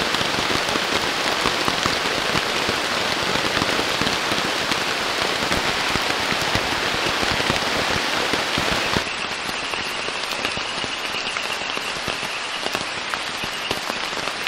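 Heavy rain falling steadily on a tent, a dense patter of drops. About nine seconds in it turns a little quieter and duller.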